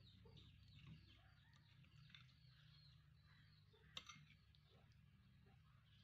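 Near silence with faint bird calls in the background, and one light click about four seconds in as a metal spoon touches the plate.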